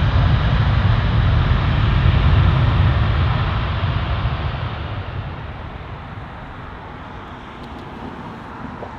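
Jet airliner passing close by, its engines making a loud deep rumble that is strongest a couple of seconds in and then fades away over the next few seconds.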